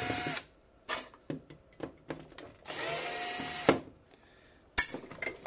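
Cordless drill-driver backing out screws from a circuit board, running in two short bursts with a steady whine, one ending just after the start and another of about a second in the middle. Small clicks and knocks sound between the bursts.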